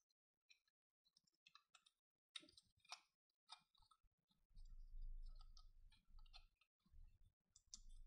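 Faint clicks and taps of wood on wood as a wooden bird piece is turned and worked through the dowel bars of a small wooden cage puzzle. A low rumble joins about halfway through.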